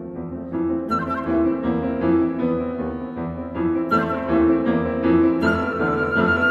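Background music: piano with violin and other bowed strings playing held notes.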